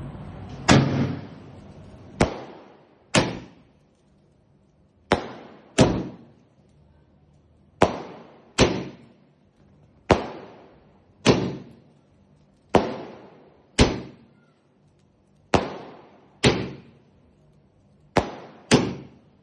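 A 30-shot repeater firework cake going off: about fifteen sharp bangs at uneven spacing, roughly one a second, sometimes two close together, each fading out over a second or so.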